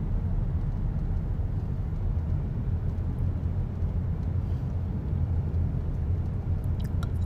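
Steady low rumble of a car on the road, heard from inside the cabin.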